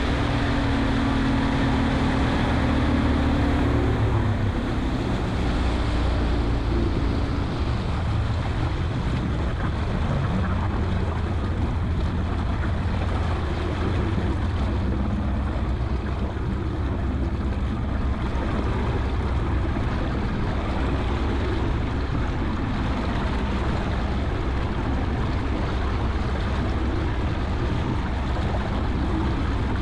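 Fishing boat's outboard motor running steadily, with wind and water noise rushing past. A hum from the motor is strongest in the first few seconds.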